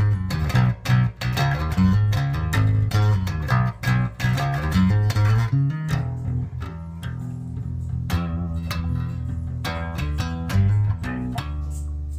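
Rickenbacker 4003 electric bass with a toaster neck pickup and a horseshoe bridge pickup, played through a Hartke LH1000 amp set flat and picked up by a phone's microphone. A fast run of plucked notes gives way about six seconds in to slower, longer held notes that ring out.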